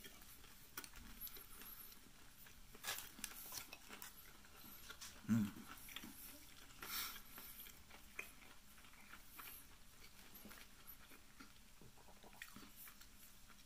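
Faint mouth sounds of a person chewing a bacon cheeseburger: soft wet smacks and small clicks, with one short low hum about five seconds in.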